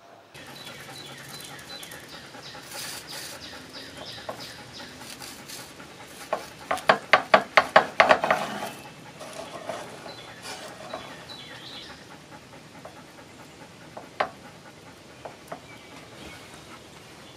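Kitchen knife sawing through a toasted patty melt on a wooden cutting board: a quick run of crunchy strokes, about four a second, lasting a couple of seconds around the middle.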